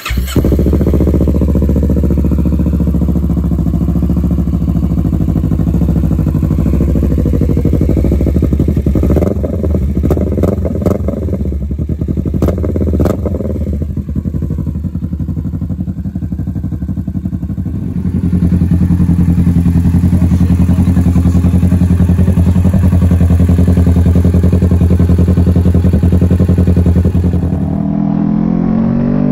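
2020 Kawasaki Z650's parallel-twin engine through a Hindle aftermarket exhaust, starting cold and idling, with a few sharp clattering knocks between about nine and thirteen seconds in. From about eighteen seconds it idles louder and steadier, warmed up, and near the end the engine note starts to rise.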